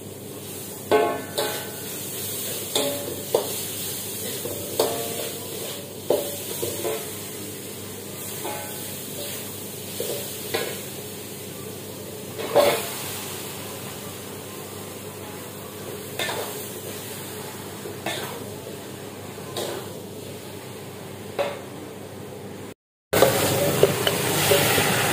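Kitchen utensils, a plastic colander and a metal wok clinking and knocking now and then as raw chicken pieces are handled, over a steady low hum. Near the end a louder steady noise comes in, with a few more knocks.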